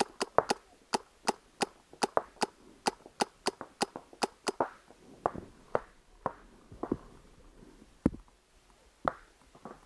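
Paintball markers firing a rapid string of sharp pops, about four a second. About halfway through they give way to sparser shots mixed with duller knocks.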